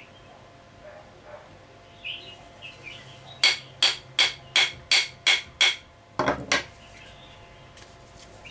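A hammer taps a wooden knife handle seven times in quick succession, about three sharp metallic taps a second, driving the handle onto the blade's tang. A short cluster of heavier knocks follows.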